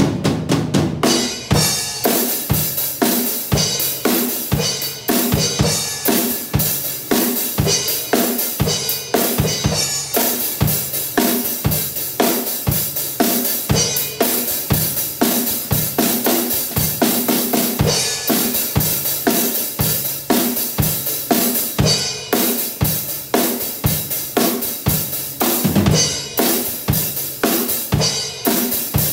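Pearl acoustic drum kit played on its own, without backing music: kick drum, snare and crash and hi-hat cymbals in a steady, driving heavy-metal beat.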